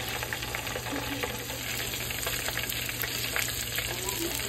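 Whole flour-dredged chicken deep-frying in a pot of hot oil, the oil sizzling steadily with many small crackling pops.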